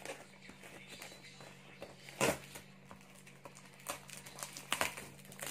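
Cardboard shipping box being handled and pried open by hand: a few short scrapes and rustles of cardboard and tape, the loudest about two seconds in, over a faint steady hum.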